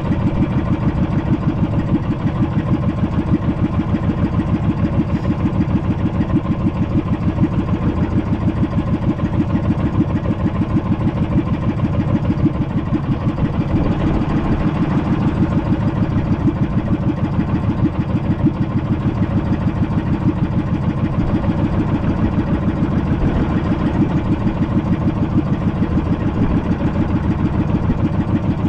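Small fishing boat's engine running steadily at low speed with a fast, even pulse while trolling.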